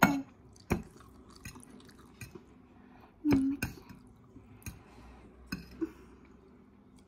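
Forks clinking and scraping on a plate as noodles are twirled, with chewing of the noodles. Sharp clinks come every second or so, with a louder cluster a little past the middle.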